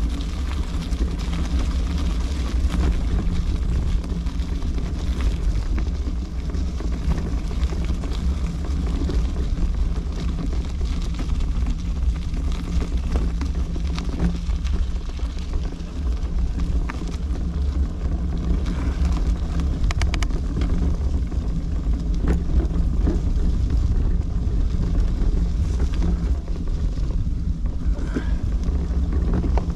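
Steady low rumble of riding an e-bike: wind buffeting the microphone and rolling noise, with a steady low hum underneath and a few light clicks.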